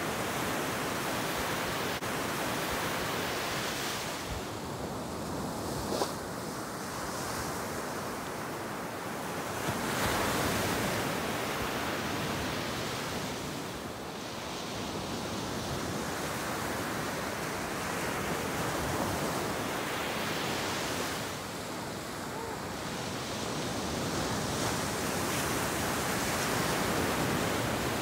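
Ocean surf breaking and washing up the beach, swelling and ebbing as each set of waves comes in.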